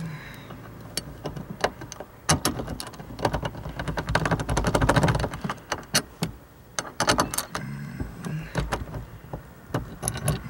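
Hand ratchet clicking in short irregular runs, with metallic clinks, as a bolt is run into a bucket seat's steel mounting rail.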